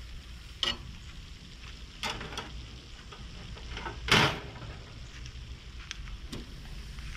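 London broil steak laid on a hot charcoal grill grate to sear, sizzling as it hits the metal, among a few sharp clicks of metal tongs. The loudest, longest sizzle comes about four seconds in.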